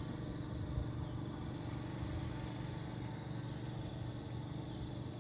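A motor's steady low hum over a faint even hiss of outdoor background.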